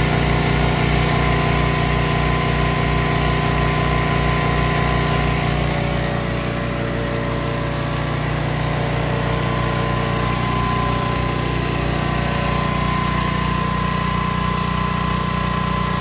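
Old petrol portable generator engine running steadily, dipping slightly in level about six seconds in.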